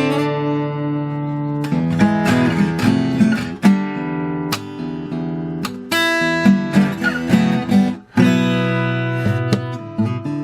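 Morris W20 acoustic guitar being played: strummed chords mixed with picked notes, with a brief break about eight seconds in before the next strum.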